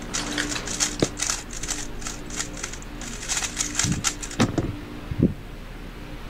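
Rapid plastic clicking of a 3x3 speedcube's layers being turned during a Rubik's Cube speedsolve. A little over four seconds in come a few heavier thumps as the cube is put down and the hands slap the timer pads to stop the timer, then the clicking stops.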